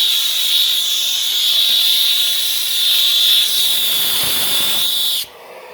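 Vax Air Stretch Pet upright vacuum cleaner running with an awful, steady high-pitched whistle over the hiss of rushing air, which cuts off suddenly about five seconds in. The owner takes the whistle for a suction issue, since it stops when the hole at the top is covered.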